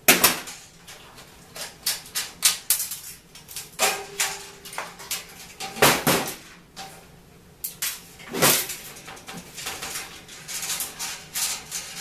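Irregular clunks, clicks and rattles of hand work on a stripped fluorescent light fixture: the removed ballast being moved and set down and loose wires and tools knocking on the sheet-metal fixture. The loudest knocks come just after the start, about six seconds in and about eight and a half seconds in.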